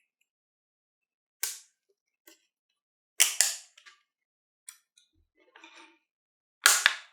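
Packaging of a luggage padlock being handled: three loud, sharp crackling snaps, about a second and a half in, around three seconds in and near the end, with faint rustles and ticks between them.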